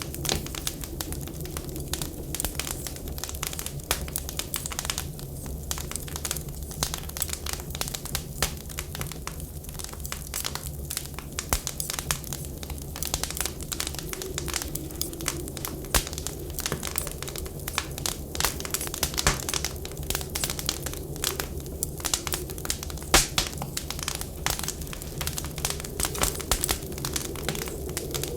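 Wood fire crackling in a fireplace, with irregular sharp pops and snaps over a steady low rumble. A wavering whistle of wind swells near the start, again midway and near the end.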